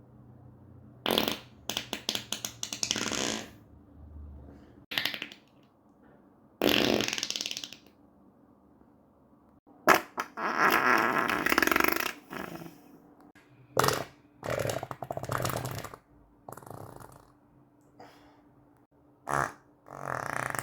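A run of human farts, about ten in all, some short and some drawn out for a second or two, with quiet gaps between them.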